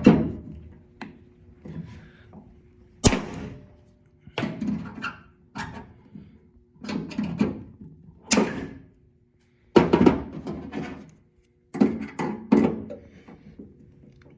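Cutters and hand tools working on a steel car body panel: a series of sharp clicks and clunks, a dozen or so spread out unevenly, each ringing briefly.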